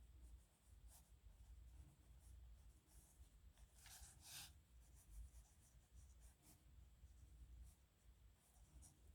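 Faint scratching of a dip nib pen on paper as strokes are written, with two louder scratches about four seconds in.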